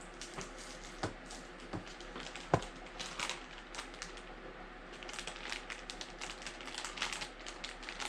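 Plastic packaging crinkling and rustling as it is handled, with scattered small clicks and one sharper tap about two and a half seconds in.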